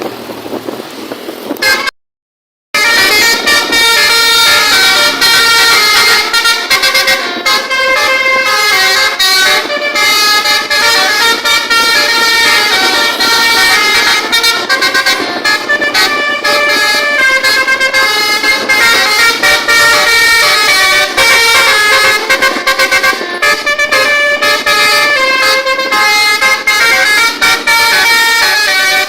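Multi-tone telolet air horns on a vehicle playing a continuous stepping melody of several tones at once, loud. They start after a brief dropout about two seconds in.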